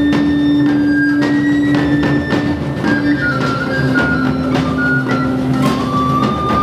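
Electrofolk band playing live: a long held low drone note that steps down slightly about three seconds in, a stepwise melody above it, and a steady beat of percussion strikes.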